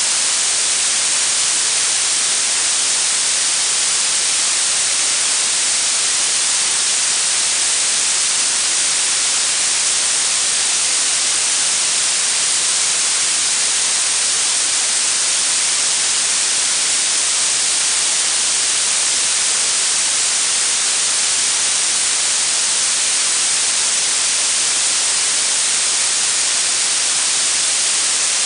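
Blue noise: a steady, even hiss weighted toward the high frequencies, thin in the bass, holding one level without change.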